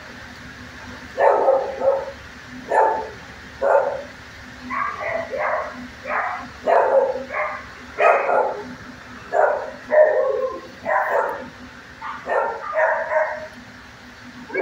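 Dog barking in a long run of short barks in uneven volleys, starting about a second in, over a steady low hum.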